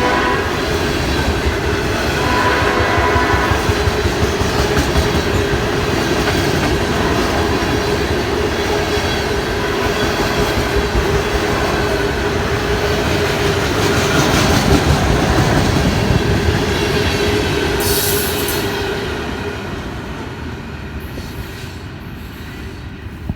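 A train passing close by with steady rumbling, wheels clicking and squealing on the rails. A short sounding of the P01235 air horn chord comes about two to three seconds in. The noise fades over the last few seconds as the train moves away.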